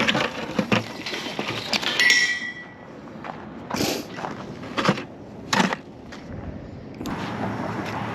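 A run of knocks and clatters, one with a short metallic ring about two seconds in, then three louder scuffing bursts. Steady road traffic noise comes in near the end.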